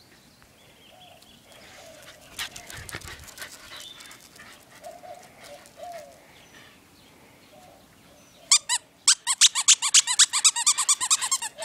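A plush dog toy's squeaker squeezed over and over in a fast run of high squeaks, about nine a second, in the last three seconds.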